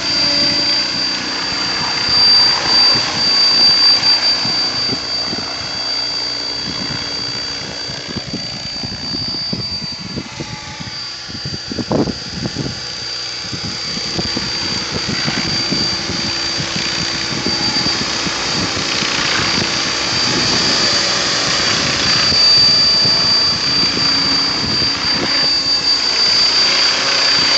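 Mikado Logo 600 electric radio-controlled helicopter in flight: a steady high-pitched motor and gear whine over the rush of the spinning rotor blades, swelling and fading as the model flies nearer and farther.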